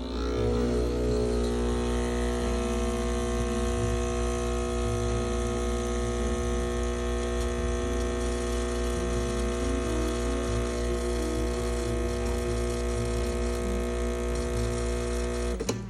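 Breville espresso machine's vibratory pump running with a steady hum while it pulls a double shot of espresso, cutting off suddenly near the end when the shot is done.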